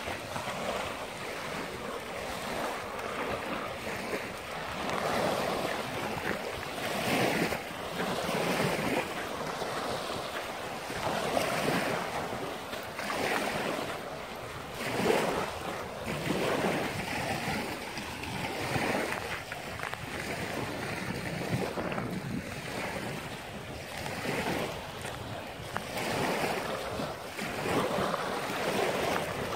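Small waves breaking and washing up a pebbly beach, the surf swelling and easing every few seconds.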